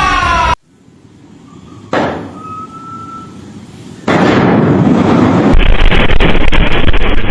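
A falling horn-like tone cuts off abruptly. A sharp bang follows about two seconds in, then loud rumbling noise sets in from about four seconds.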